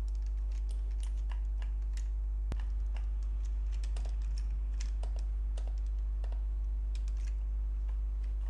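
Computer keyboard keys and mouse buttons clicking irregularly, a few strokes a second, with one sharper click about two and a half seconds in. Under them runs a steady low electrical hum.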